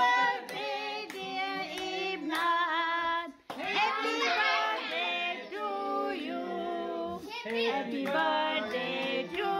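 Singing with children's voices prominent, a song of held notes; the sound drops out abruptly for a moment about three and a half seconds in.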